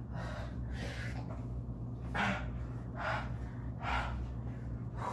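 A man breathing hard and noisily through his mouth, a sharp rushing breath about once a second, as he suffers the burn of a very hot sauce.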